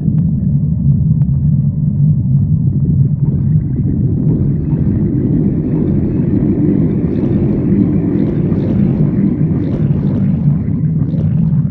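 Stomach growling: a long, unbroken low rumble. A fainter, higher layer swells in from about three seconds in and drops away near the end.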